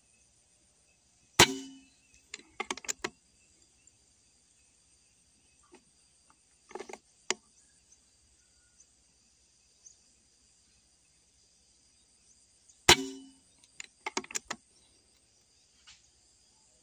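Two air-rifle shots about eleven seconds apart, each a sharp crack followed within a second by a quick run of smaller clicks. Insects buzz steadily underneath.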